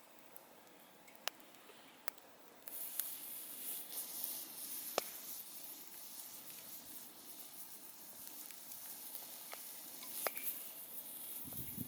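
Wood campfire crackling, with sharp pops every second or few. About three seconds in, a steady high hiss sets in under the pops, like damp wood steaming in the flames.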